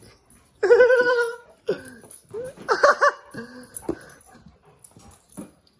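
A dog whining: a long high cry about half a second in, followed by several shorter, wavering whines.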